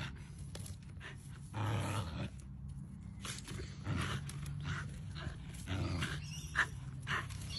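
Border collie making several short, rough playful growls and grunts while it plays.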